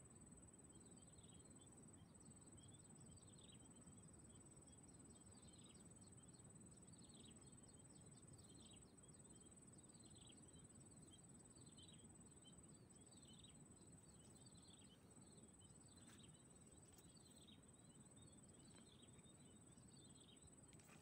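Near silence: faint pond-side ambience with a steady high-pitched whine and repeated short, falling high chirps, roughly one a second, over a low hiss.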